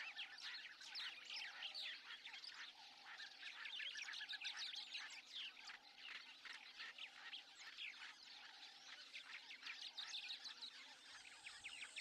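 Faint bush ambience of many wild birds chirping and calling, dense and overlapping.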